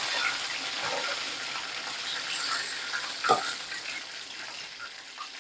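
Oil sizzling steadily in a pan as a whole fish fries, with one short knock about three seconds in.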